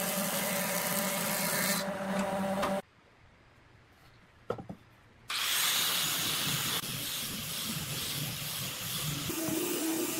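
A combination jointer-planer's motor hums steadily as a board is fed over the cutter head, with a loud hiss of planing that stops about two seconds in. After a short faint stretch with a single click, an angle grinder with a sanding disc starts up about five seconds in, sanding along a softwood beam with a steady whir and hiss.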